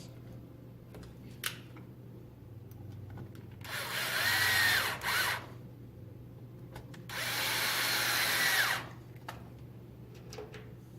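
A power driver runs twice, each time for about a second and a half, with a whine that rises as the motor spins up and falls as it stops, while it drives M4 flathead socket screws into the RC truck's chassis.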